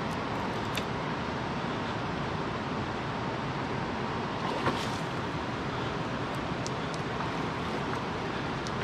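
Steady rushing of flowing river current, with a few faint clicks.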